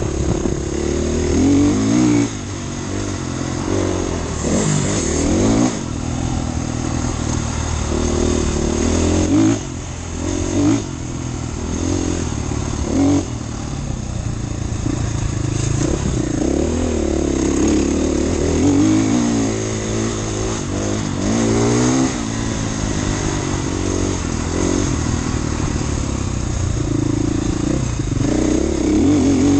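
Husqvarna FE450 enduro motorcycle's single-cylinder four-stroke engine under way, revving up and dropping back again and again as the throttle is opened and closed, with sudden surges in loudness several times.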